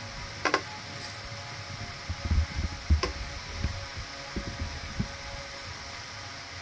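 Screwdriver and small plastic pipe clip being handled against a wooden panel: a sharp click about half a second in, another around three seconds in, and a run of low knocks in between, over a steady background hum.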